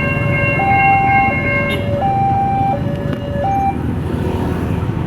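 Two railway level-crossing warning sirens sounding together: one alternates between a high and a low tone, each held about 0.7 s, and the other, higher-pitched, cuts out just under two seconds in. The two-tone siren stops near four seconds in, leaving steady road traffic noise.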